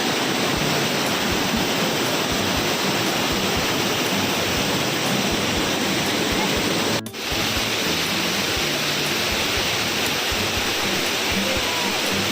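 Waterfall's steady rush of falling water, cut off for a split second about seven seconds in before it carries on.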